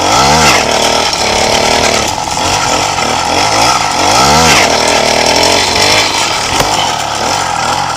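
Small single-cylinder motorcycle engine revving up and dropping back twice, about four seconds apart, over a steady hiss.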